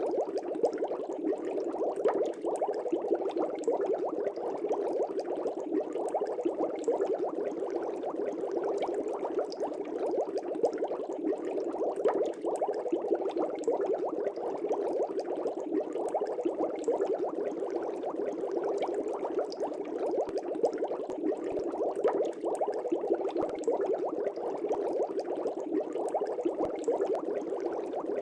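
Air bubbles bubbling up through the water of a fish tank, a steady, dense bubbling without pause.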